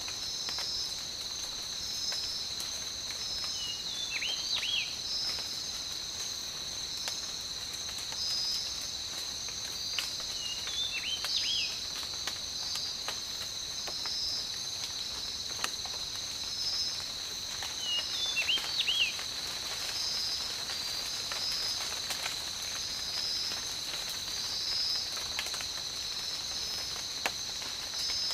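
Tropical night-forest ambience: a steady, high-pitched chorus of insects with a pulsing trill running through it, over light rain patter and scattered drips. A short, quick bird call comes four times, roughly every seven seconds.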